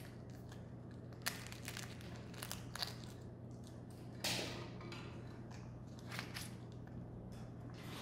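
African grey parrot biting and crunching a hard-boiled egg and its shell with its beak: scattered sharp cracks and crunches, with a longer crunchy rustle about four seconds in.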